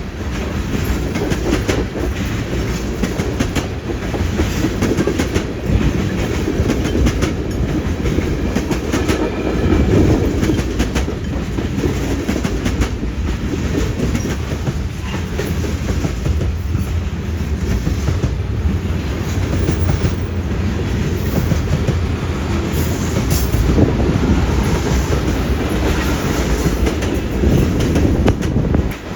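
Long freight train rolling past at steady speed: a continuous low rumble of the cars, with wheels clacking over rail joints many times along the way.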